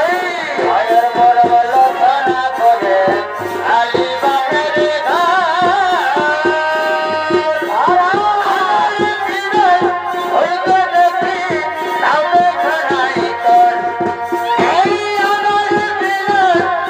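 Chhau dance accompaniment: fast, dense drumming with a wavering melody line above it.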